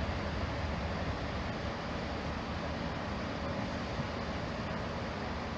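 Diesel multiple unit standing at the platform with its engine running steadily, under a wash of wind noise.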